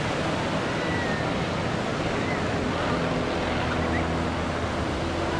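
Steady rush of surf and wind noise with the distant drone of a Pitts aerobatic biplane's engine and propeller faintly beneath it, the drone shifting in pitch as the plane manoeuvres.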